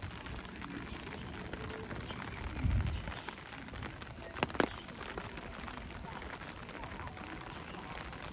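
Steady patter of rain with footsteps on wet paving. There is a short low thump near three seconds in and a sharp click about four and a half seconds in.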